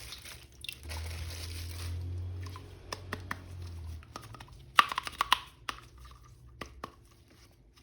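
Action-figure packaging crinkling and tearing as it is opened, followed by a series of sharp clicks and taps as it is handled.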